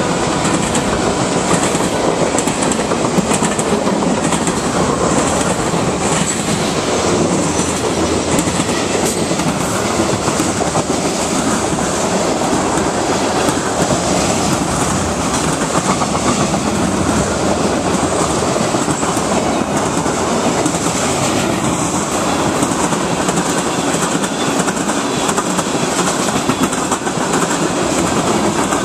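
CSX freight train's cars rolling past at close range: a steady, even rumble and clatter of steel wheels on the rails as covered hoppers, boxcars and tank cars go by.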